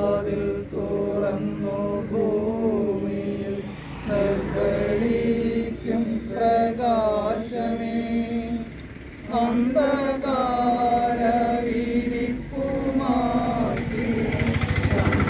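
Liturgical chanting: clergy sing a prayer in a slow, gliding melodic line, phrase by phrase with short pauses. A loud, rapid rattling noise comes in near the end.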